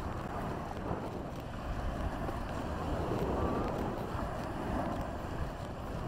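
Wind buffeting the microphone over small waves breaking and washing up onto the sand, swelling a little midway.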